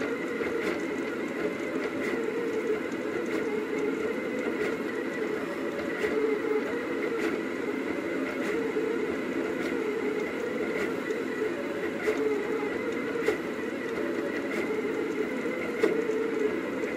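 Rostock delta 3D printer running: its stepper motors give a steady whirring whose pitch shifts with each move of the print head, with faint clicks throughout.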